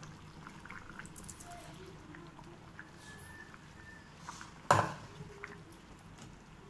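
Faint scraping and soft wet sounds of thick mashed dal sliding from a steel vessel into a pot of simmering sambar and being stirred in with a steel ladle, with one sharp metallic clank of steel striking the steel pot about two-thirds of the way through.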